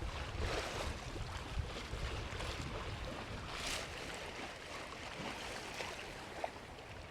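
Water washing along a sailboat's hull as it sails in light wind, with swells of splashing hiss, the strongest a little under four seconds in, and a low rumble of wind on the microphone.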